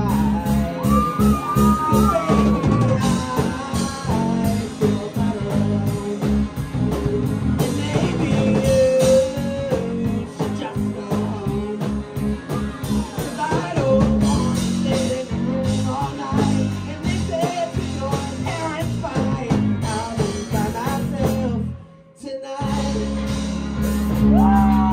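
Live rock band playing a song: a singer over electric guitar, bass and a drum kit. Just after 22 seconds in, the band stops dead for a split second, then crashes back in loud.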